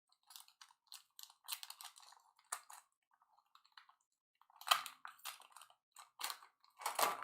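Trading card packs being torn open and handled: irregular crisp crackles and ticks of wrapper and card stock, with louder bunches about two thirds of the way through and near the end.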